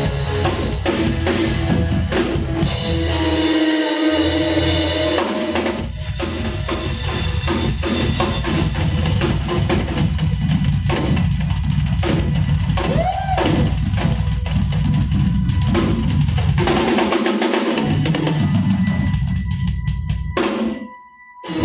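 Live band playing an instrumental passage with the drum kit out front: kick drum, snare hits and rimshots over held keyboard and bass notes. The music cuts off suddenly near the end.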